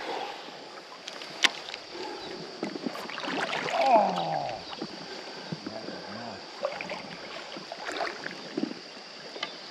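Shallow creek water swishing and lapping around a wader's legs, with a few sharp clicks from a baitcasting rod and reel being cast and worked.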